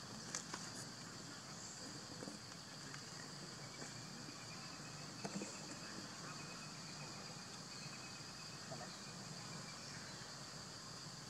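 Steady high-pitched chorus of insects, with a few faint clicks near the start and midway.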